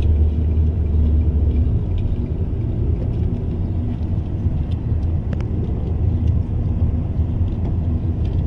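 Steady low rumble of a moving car heard from inside the cabin.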